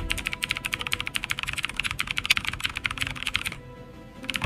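Rapid clicking of keys on a computer keyboard, many strokes a second, stopping about three and a half seconds in.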